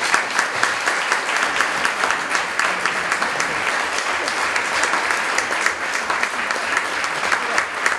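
Audience applauding, many hands clapping at once, keeping up a steady level throughout.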